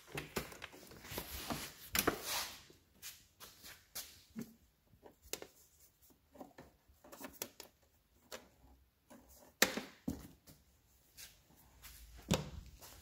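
Irregular clicks, knocks and rattles of hand and tool work on a scooter, with a few louder knocks; no engine is running.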